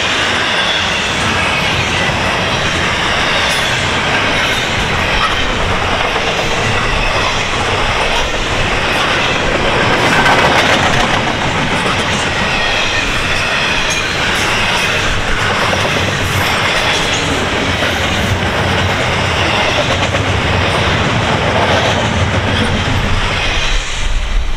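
A freight train of double-stack intermodal well cars rolling past at speed, its steel wheels clacking over the rails in a steady loud rush. The noise thins out near the end as the last cars go by.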